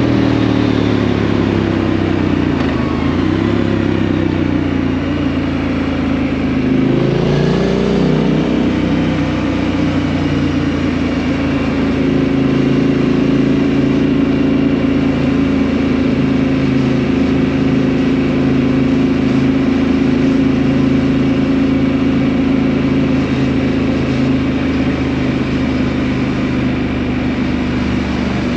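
2018 Triumph Street Scrambler's 900 cc parallel-twin engine through a Vance & Hines exhaust, heard while riding. The engine note falls over the first few seconds, rises sharply about seven seconds in, then holds steady.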